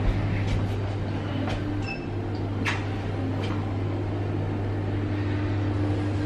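Passenger lift (elevator) car: a steady low hum with a few light clicks, and a short electronic beep about two seconds in.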